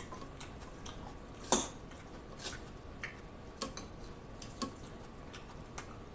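A metal fork picking through Caesar salad in a glass bowl: a handful of light clicks and taps about a second apart, the strongest about a second and a half in.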